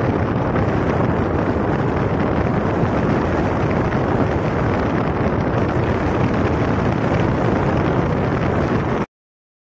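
Strong wind buffeting the microphone, a steady dense rumble with no distinct engine note. It cuts off suddenly near the end.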